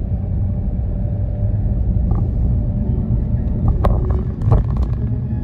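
Car road and engine rumble heard from inside the moving car's cabin, steady and low. A few sharp knocks come close together about four seconds in.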